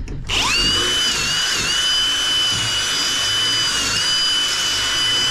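Cordless drill spinning up to a steady high whine while drilling aluminum, the pitch dipping briefly a few times as the bit bites, then winding down at the very end.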